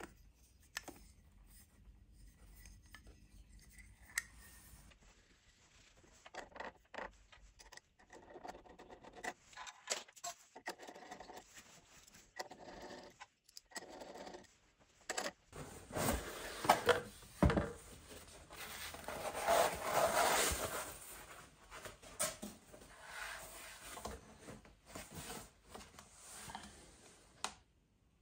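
Hands handling and fitting machine parts and packaging: irregular rubbing and scraping with scattered sharp clicks and knocks, sparse at first and busiest in the second half.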